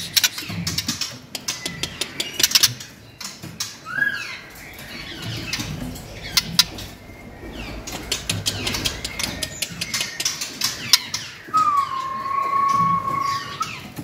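White-rumped shama fluttering and hopping about a wooden slatted cage: many sharp knocks and wing flaps throughout. A short whistled note comes about four seconds in, and a long steady whistle lasts about two seconds near the end.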